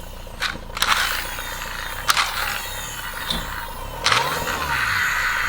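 A plastic toy tank truck being handled: several sharp clicks and knocks, then a steadier scraping hiss from about four seconds in.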